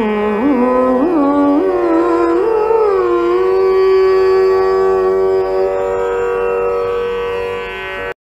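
Carnatic-style singing: one voice draws out the last note of a Sanskrit maṅgalam hymn, with quick pitch turns in the first few seconds, then holds a long steady note that cuts off abruptly near the end.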